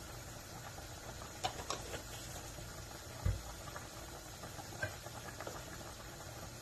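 Pans of pasta boiling hard on a gas stove: a steady bubbling hiss, with a few light clicks and one dull knock about three seconds in.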